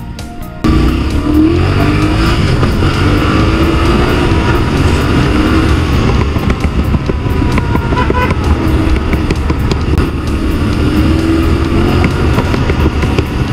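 Yamaha Ténéré 700's parallel-twin engine running on the road, its pitch rising and falling as the throttle opens and closes. It is heard under a heavy rush of wind on the onboard microphone, and the engine and wind sound cuts in abruptly about a second in.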